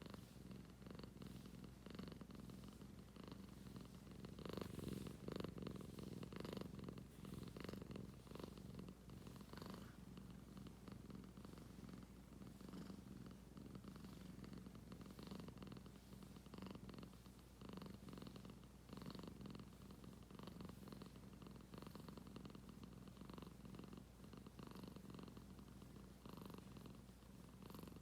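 A domestic cat purring steadily: a faint, low rumble that swells and eases with each breath.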